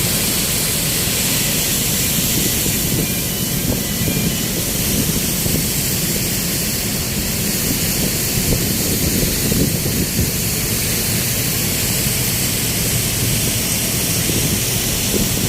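Cargo-ship loading equipment hissing steadily and loudly over a low rumble.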